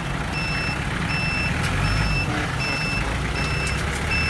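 Forklift reversing beeper sounding a steady series of short high beeps, a little over one a second, over the low running of a Komatsu FD25 diesel forklift's engine.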